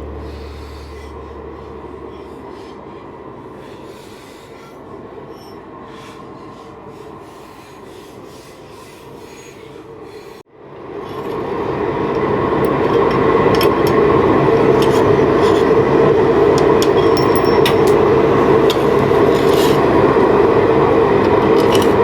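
A forge running with a steady roar, quieter at first; it breaks off suddenly about ten seconds in and comes back louder.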